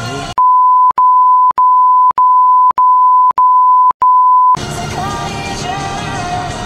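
A censor bleep: one steady high-pitched beep lasting about four seconds, broken by six very short dropouts, then it cuts off and background music carries on.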